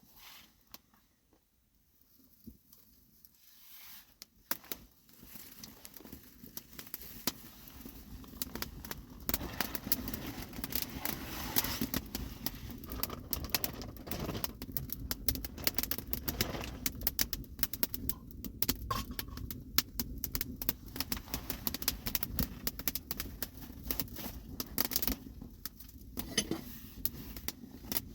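Dense crackling and clicking that builds up after a quiet first few seconds, over a steady low hum.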